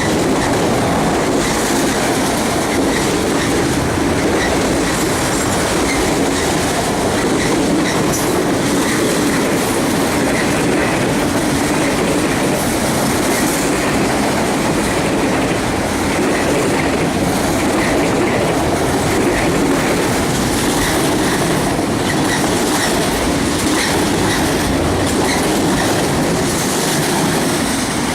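Fast CSX freight train of autorack cars rolling past, with a steady, loud rumble of steel wheels on rail and the clickety-clack of wheels crossing rail joints.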